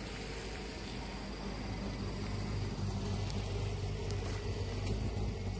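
A low, steady engine hum that grows a little louder about two seconds in.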